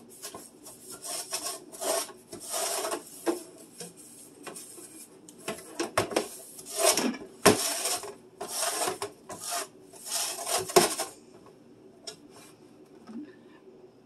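Scrub sponge scrubbing the bottom of a clear plastic refrigerator crisper drawer in a run of back-and-forth strokes, which stop about three seconds before the end.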